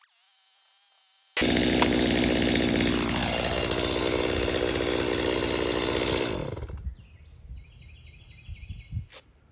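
Stihl MS250 two-stroke chainsaw running, cutting in suddenly at full volume. Its engine note drops about a third of the way in, then dies away just past the middle.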